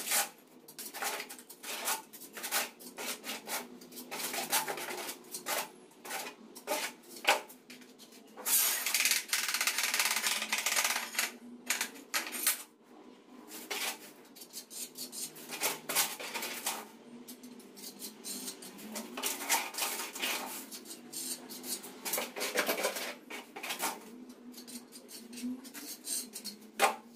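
Steel trowel scraping and clinking against ceramic skirting tiles and tile adhesive, in irregular strokes and taps, with a longer stretch of steady scraping about nine to twelve seconds in.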